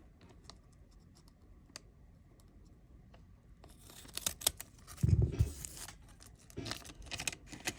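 Scissors cutting open a thin sealed trading-card pack: a run of sharp snips and wrapper rustling in the second half, with a dull thump about five seconds in.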